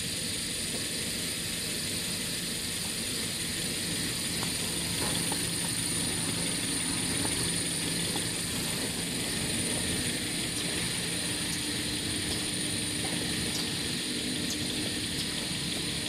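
Toilet paper converting machinery running steadily: a continuous mechanical drone with a thin, high, steady whine over it, and a few faint ticks in the last few seconds.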